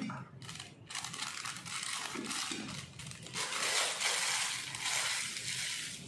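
Thin clear plastic bag crinkling as it is emptied and crumpled in the hands, loudest about four seconds in.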